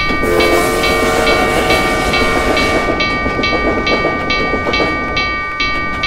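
Railroad crossing bell ringing about twice a second over the steady rumble and clatter of a passing train. Near the start a steam locomotive's whistle sounds for about two and a half seconds.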